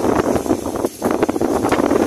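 Strong storm wind buffeting the microphone in loud, gusty rushes, with a short lull about a second in.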